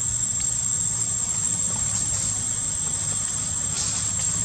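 Steady high-pitched insect drone over a low, even rumble, with a few faint ticks.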